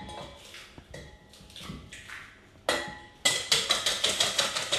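Eggs being beaten with a whisk in a stainless steel mixing bowl: after a quiet start with a few faint clicks of eggs being cracked, a rapid run of metallic clicking strokes begins about three seconds in.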